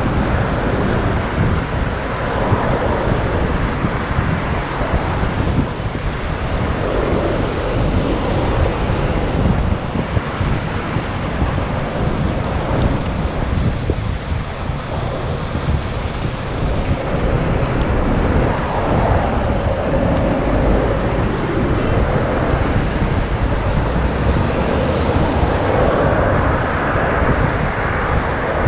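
Wind buffeting the GoPro's built-in microphone, a steady low rumble over a wash of street traffic noise.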